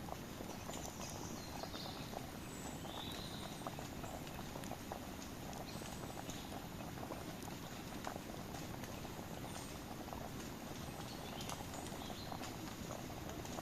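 Campfire crackling: burning wood giving a steady hiss with frequent small, irregular pops and snaps.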